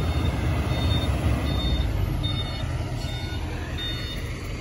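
Diesel engine of a Kobelco crawler excavator running under load with a deep rumble, and a reversing alarm beeping faintly with short high beeps every second or so.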